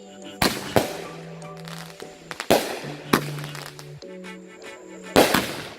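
Consumer fireworks going off: about five sharp bangs at irregular intervals, each with a short ringing tail, over background music with sustained notes.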